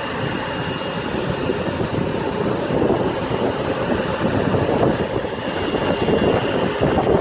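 Jet engines of a Bombardier CRJ700 regional airliner running with a steady rush and a faint high whine, with wind buffeting the microphone.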